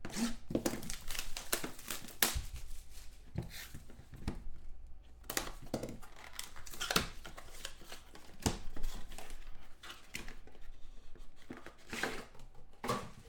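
Plastic shrink wrap being torn and crinkled off a sealed trading-card box, with irregular crackles and knocks as the cardboard box is handled and slid open.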